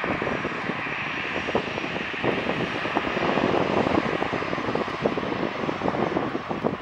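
Airbus A320's two CFM56 turbofan engines running at low power as the airliner taxis, a steady jet whine and hiss.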